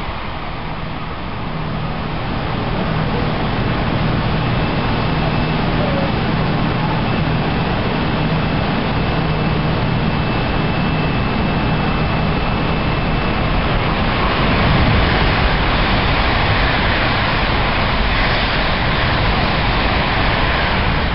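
Tokaido Shinkansen train passing at speed: a long, steady rush of wheel and air noise, with a faint high whine for several seconds in the middle and a swell in loudness about fifteen seconds in.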